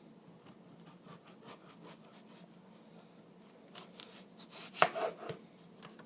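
Kitchen knife cutting into a raw russet potato: light scraping clicks of the blade, then a few sharper knocks about four to five seconds in, the loudest near five seconds.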